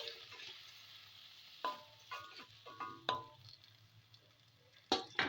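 Metal spatula stirring chutney in a kadai, with several sharp clinks of the spatula against the pan, each ringing briefly, the last two close together near the end. Faint sizzling of the amla and tomato in hot mustard oil under it.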